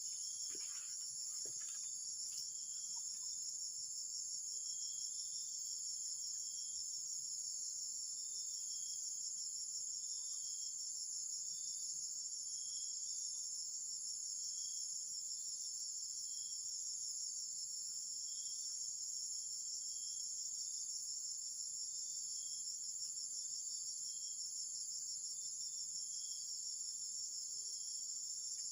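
Steady high-pitched insect chorus, with a fainter short chirp repeating about once a second beneath it, and a few light clicks in the first two seconds.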